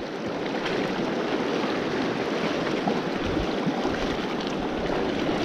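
Steady rush of a fast, shallow river running over rocks, close around the wading angler.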